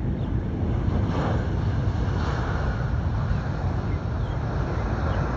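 Wind buffeting the phone's microphone: a steady low rumble with a hiss above it.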